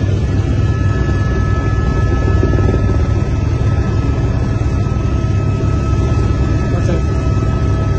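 Helicopter cabin noise in flight: a steady low rumble from the rotor and engine, with a thin, steady whine above it.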